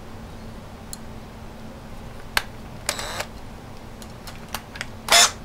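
Cordless hand drill with a #31 bit being started in a steel gas block pinning jig. It is given a few short bursts with clicks in between rather than run steadily, easing the bit in at an angle. The loudest burst comes near the end.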